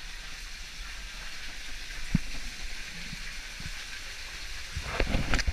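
Water sloshing and splashing as a person wades and swims through a deep pool, over a steady hiss of running water. The splashing gets louder and choppier near the end.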